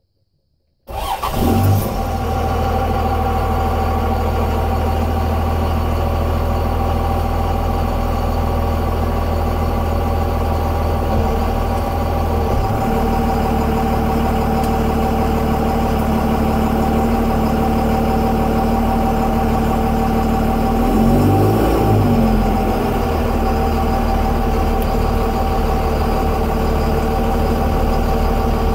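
Dodge Ram's 24-valve Cummins 5.9 L inline-six turbodiesel heard from inside the cab, starting up about a second in and then running steadily at idle. A little past two-thirds through, its pitch briefly rises and falls.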